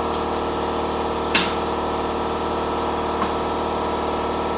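A steady machine hum, even in level, with a sharp click about a second and a half in and a fainter click a little after three seconds.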